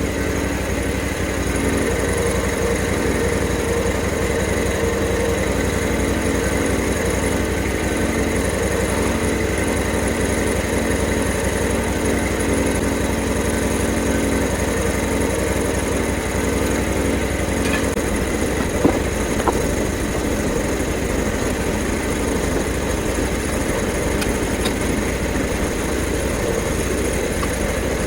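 Small gas engine of a Hud-son portable bandsaw mill running steadily, as it does while sawing a log. A second pitched drone in the sound stops about two-thirds of the way through, and a couple of sharp knocks follow soon after.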